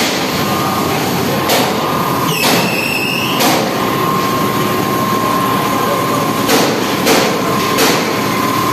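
Industrial laundry machinery running with a steady noise and a constant high whine, broken by several sharp knocks and a short squeal about two and a half seconds in.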